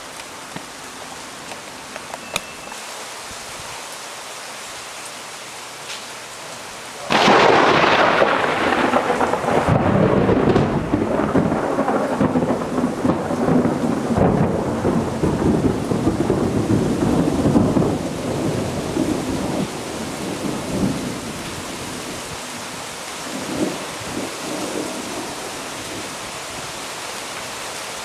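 Steady rain, then about seven seconds in a sudden, loud clap of thunder that rolls and rumbles for about ten seconds and fades back into the rain with a few smaller swells.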